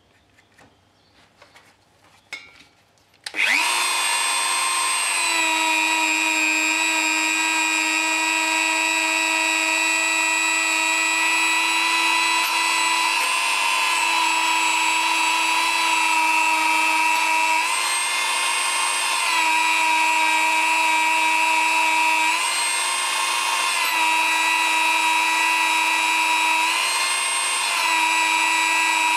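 Dremel rotary tool switched on about three seconds in and running at high speed with a steady high-pitched whine, its pitch stepping slightly up and down a few times. It is spinning a polishing wheel loaded with metal paste to clear built-up crud from the end of a brake master cylinder bore.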